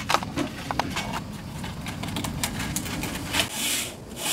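Knife-grinding belt grinder running with a steady low hum. Light clicks and knocks come in the first second or so, then two short hissing rushes near the end.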